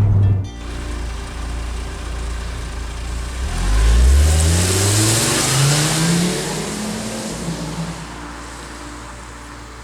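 Exhaust of a 2006 VW Jetta's 2.5-litre five-cylinder engine as the car accelerates, its pitch rising steadily between about three and six seconds in, loudest around four seconds, then fading as the car pulls away.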